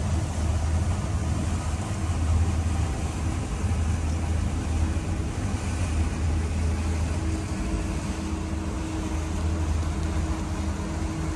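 Hewescraft 290 Adventurer's outboard motor running steadily with the boat underway, heard inside the pilothouse as a constant low drone over a broad rushing noise. A slightly higher steady tone joins the drone about seven seconds in.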